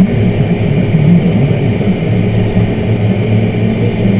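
Diesel engine of a large tractor pulling dirt scraper pans, running steadily, heard from inside the cab. Its pitch wavers a little for the first couple of seconds, then holds steady.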